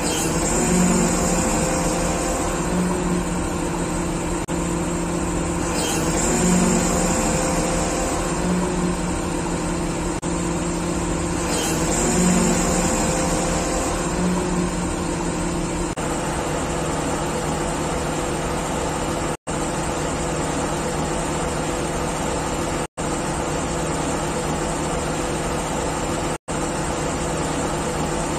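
Diesel engine of an XCMG QY25K5A truck crane running steadily, its note rising briefly three times in the first half, about five seconds apart. Later the sound cuts out for an instant three times.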